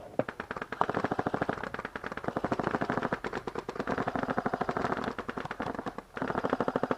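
Automatic gun firing long full-auto strings at roughly fifteen shots a second, with a short break about six seconds in.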